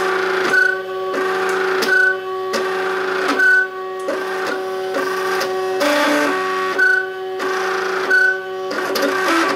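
Stepper motors of a MakerBot Cupcake CNC 3D printer running as it prints: a steady pitched whine that steps to new pitches as the moves change, with a short high chirp about every one and a half seconds.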